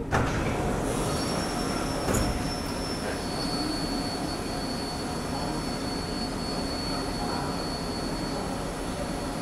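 Singapore Downtown Line metro train pulling to a stop at an underground platform, its doors opening with a knock about two seconds in. Steady rumbling train noise runs underneath, with a thin, steady high whine from about three seconds in.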